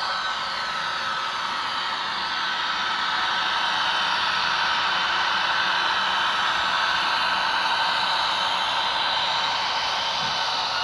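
HO scale model train running on the layout: a steady whirring hiss from the locomotive motor and wheels on the rails, with faint whining tones. It swells slightly in the middle.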